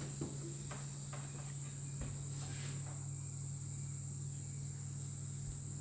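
Quiet background: a steady high-pitched whine and a low hum, with a few faint soft ticks.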